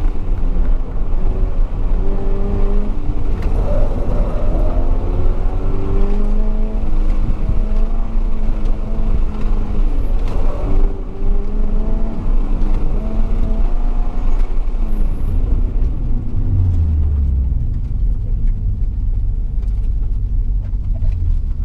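Toyota GR86's flat-four engine revving up and down again and again as the car is driven hard through an autocross course. About sixteen seconds in the revs drop low and steady.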